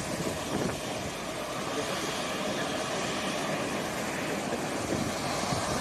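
Steady airport apron noise: a continuous, even rumble and hiss from jet aircraft and ground equipment, with no single distinct event.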